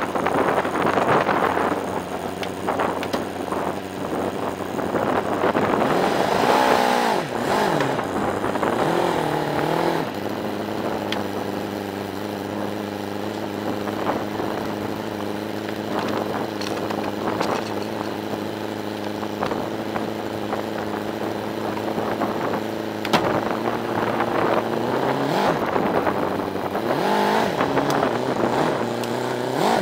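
Lowered early Bay Window VW Type 2 bus's air-cooled flat-four engine running at idle, revved up and back down twice, about six seconds in and again near the end, as the bus creeps forward onto wooden planks.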